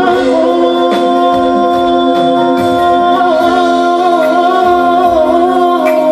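Live band playing a slow pop ballad while a male singer holds a long note with vibrato through the second half.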